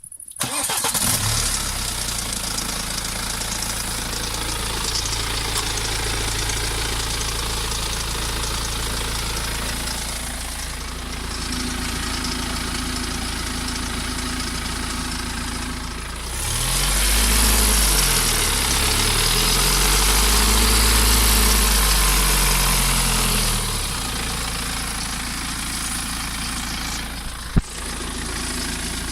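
BMW 118d's N47 four-cylinder diesel starting and idling with the rattle of a worn timing chain, then revved up and down a few times past the middle before settling back to idle. A single sharp click near the end.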